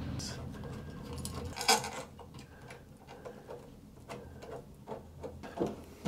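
Small metal clicks and light rattling of smart deadbolt hardware being handled and fitted against a door, with one sharp click a little under two seconds in.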